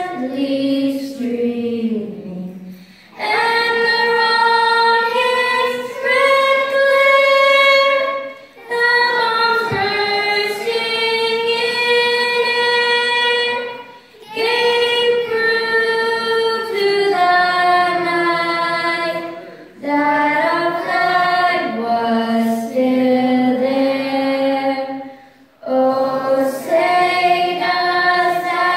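A young girl singing a national anthem solo into a handheld microphone, unaccompanied, in long held phrases with short pauses for breath every few seconds.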